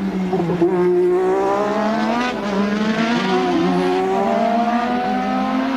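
A 1988 Formula One car engine running at racing speed, its pitch dipping and rising as the throttle changes.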